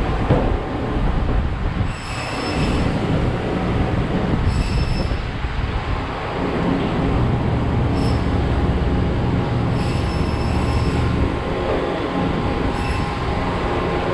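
Steady background noise with about five short, high-pitched squeals spread through it.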